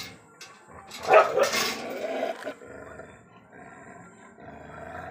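A dog barking and growling; the loudest outburst comes about a second in and trails on for a second or so, with a weaker growl near the end.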